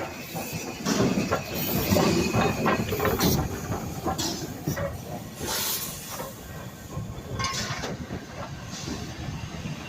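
Steam locomotive 41298, an Ivatt Class 2 tank engine, arriving with its train: hissing steam and irregular clanks and knocks of the train on the rails, loudest about one to three seconds in.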